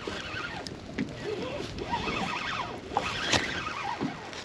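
A faint, indistinct voice in the background, with a few light clicks and knocks.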